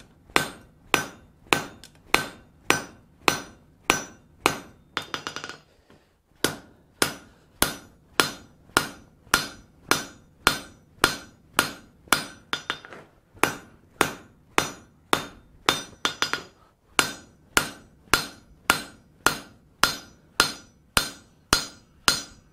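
Hand hammer striking a glowing-hot 3/8-inch steel bar on an anvil in steady blows, about two to three a second, each with a short metallic ring. The blows set down a shoulder to start a boss, pausing briefly twice.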